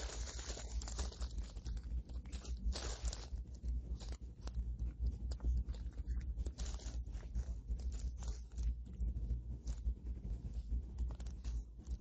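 Clear plastic wrap crinkling and rustling as a large sandwich is unwrapped by hand, with small irregular taps and clicks of handling. Louder crinkles come near the start, about three seconds in and about seven seconds in, over a steady low hum.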